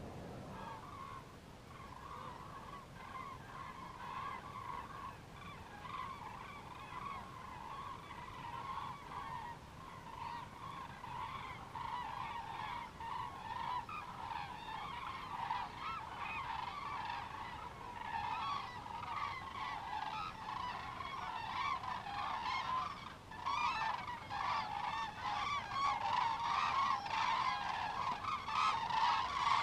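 A flock of wild geese calling, many honks overlapping without pause, growing louder toward the end.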